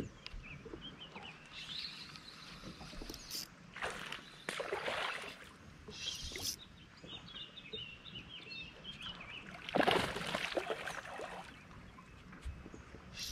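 Outdoor ambience on the water: faint birds chirping, with two brief rushes of noise about four and ten seconds in.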